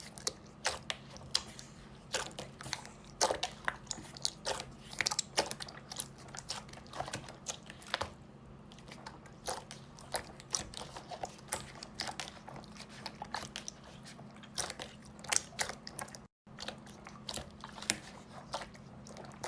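Slime being squeezed and pressed by hand, giving irregular sharp clicks, crackles and pops over a faint steady hum, with a brief break in the sound about sixteen seconds in.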